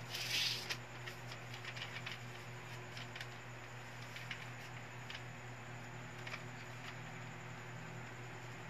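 Faint rustles and small ticks of craft paper being handled and a glue stick rubbing on it, with a brief louder rustle about half a second in, over a steady low hum.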